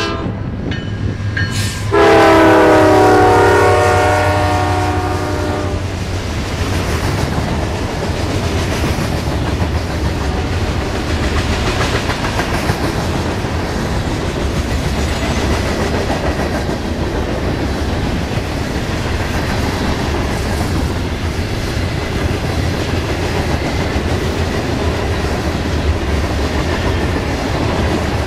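Norfolk Southern diesel freight train passing close by: the locomotive's air horn sounds a loud multi-note chord from about two seconds in, lasting about four seconds and fading. After it, the steady rumble and clickety-clack of hopper cars rolling past over the rail joints.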